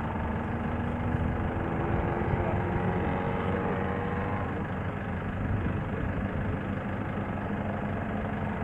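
A heavy vehicle's engine idling steadily nearby: a continuous low rumble with faint steady tones above it.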